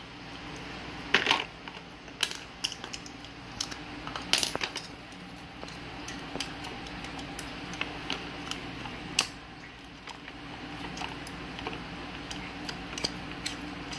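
Scattered plastic clicks and clatter from a car cigarette-lighter socket splitter, its cable and its clear plastic packaging being handled, with sharper knocks about a second, four seconds and nine seconds in.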